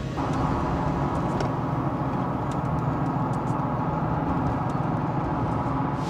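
Jeep driving on the road: a steady engine and tyre rumble, with a few faint ticks in the middle.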